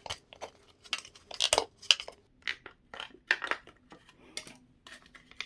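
Irregular metallic clicks and scrapes, several a second, of a tool working the push-fit drive coupler off a mixer grinder's motor shaft.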